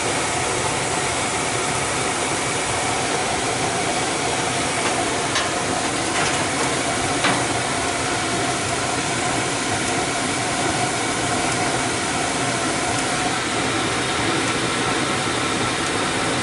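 Bryant gas furnace running: the burners firing with a steady rushing hiss alongside the freshly replaced exhaust inducer fan motor, with a steady tone running through it. A few faint clicks come in the middle.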